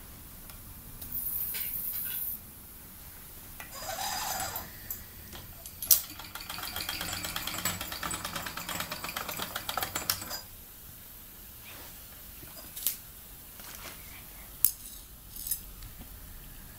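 Mamod TE1A toy steam traction engine running: a short hiss, then about four seconds of rapid, even chuffing from its small steam cylinder. A few sharp metallic clinks follow as the model is handled on the tile floor.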